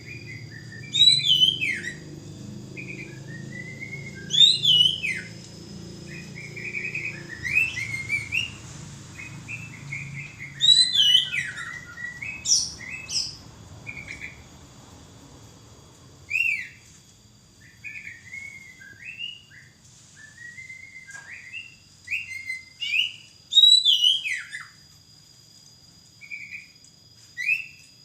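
Oriental magpie-robin (kacer) singing vigorously: loud, varied whistled phrases with quick rising and falling glides, repeated every second or two. A steady high tone runs underneath, and a low hum fades out about halfway.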